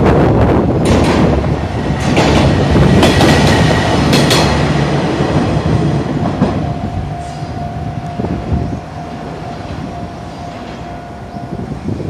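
Tenryū Hamanako Railroad TH2100 diesel railcar passing close by, its engine rumbling and its wheels clicking over the rail joints several times, then growing quieter as it runs away, with a steady tone in the second half.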